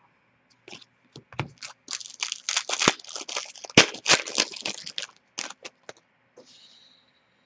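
Hockey trading cards being flipped and slid off a stack in the hand, a run of quick dry card rustles and snaps. They are busiest between about two and five seconds in.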